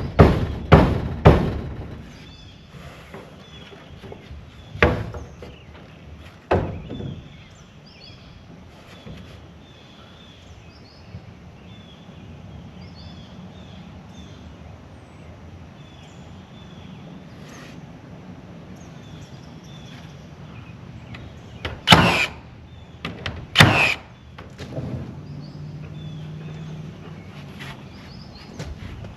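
A series of sharp thuds and knocks, several in quick succession at first, then single ones, with the two loudest about two-thirds of the way through, over a steady outdoor background.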